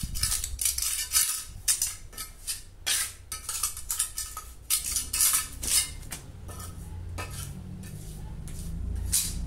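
Steel mason's trowel scraping and tapping across a wet cement floor while working white cement into veins for a burnt-cement finish. A quick, irregular run of sharp scrapes thins out after about six seconds. A low steady rumble underneath swells toward the end.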